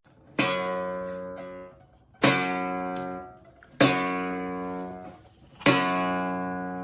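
Acoustic guitar strumming four slow chords, each struck once and left to ring and fade before the next.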